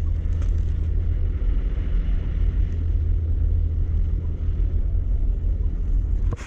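A steady, loud low rumble that cuts off suddenly near the end.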